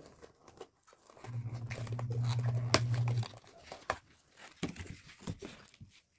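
White paperboard cake box being pulled open by hand: rustles and sharp clicks of card as the flaps fold back. In the middle, a low steady hum runs for about two seconds and is the loudest sound.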